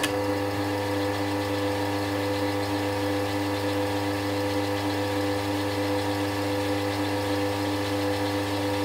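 Scheppach DP18 Vario bench drill press running at steady speed, a constant motor hum with several steady tones, as it spins a freshly fitted chuck for a runout check. The sound starts abruptly at full level, already at speed.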